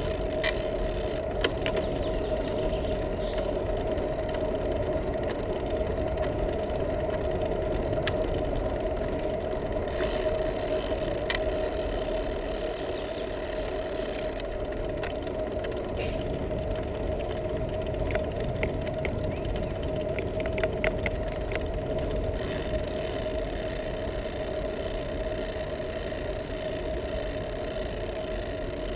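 Steady rumble of a bicycle's tyres on asphalt mixed with wind noise, picked up by a bike-mounted action camera, with scattered light rattling clicks from the bike.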